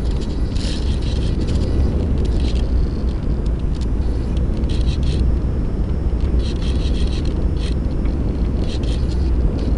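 Wind rushing over the microphone of a small camera mounted on a HobbyZone Champ ultra-micro RC airplane in flight: a steady, heavy low rumble, with brief higher hissy patches coming and going a few times.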